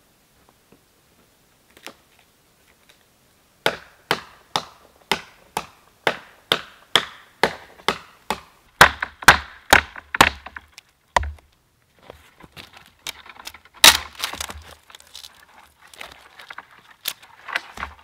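A knife being batoned into firewood on a wooden chopping stump: sharp wooden knocks at a steady pace of about two a second. After a short pause the wood splits apart with crackling and splintering and one loud crack.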